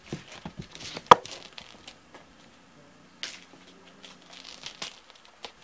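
Cats playing on a tile floor: scattered light taps and clicks, stretches of rustling, and one sharp loud knock about a second in.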